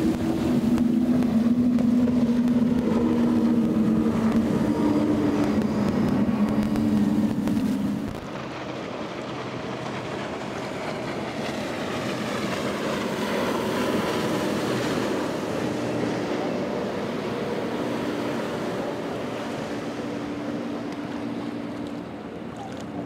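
Motorboat engines running at speed through rough water, with wind on the microphone. For the first eight seconds a loud, steady low engine drone; then it drops suddenly to a quieter drone of a rigid-hull inflatable boat's engines with the hiss of spray and waves.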